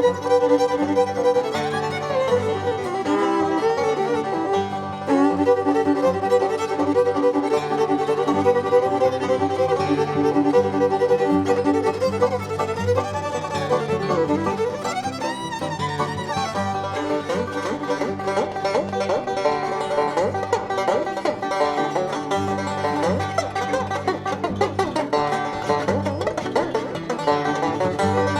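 A bluegrass band playing an instrumental tune live, with fiddle and banjo out front.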